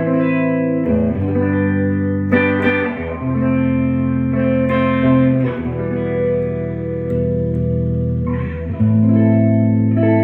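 1960s Klira Triumphator electric guitar with three Schaller pickups, played through an amplifier: strummed chords ringing out and changing every second or two.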